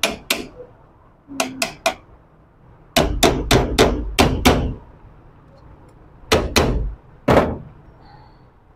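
Hammer tapping a 2015–16 Honda City alternator's cast aluminium housing, knocking the two halves together to seat them during reassembly. About a dozen sharp taps in groups: a few quick ones, a fast run of about seven, then three more.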